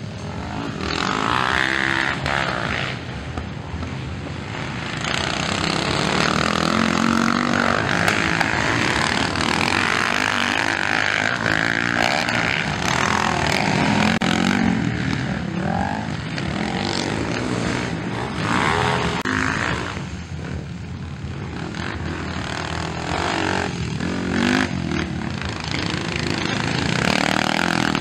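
Motocross dirt bike engines racing on the track, revving up and down as the riders accelerate, shift and back off over the jumps and berms.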